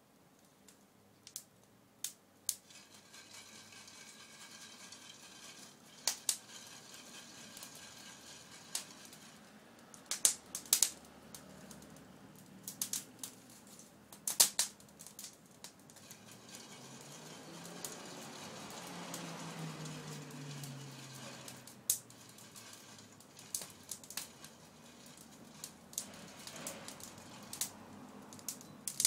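Wood fire crackling under a long-handled pan of roasting chestnuts, with scattered sharp clicks and pops over a faint steady hiss. A low rumble swells and fades about two-thirds of the way through.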